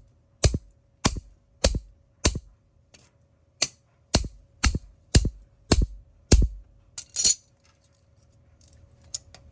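About ten sharp blows in a steady rhythm, roughly one every half-second, as a plastic wireless mouse is smashed to break it open, then one more rattling hit a little later before the blows stop.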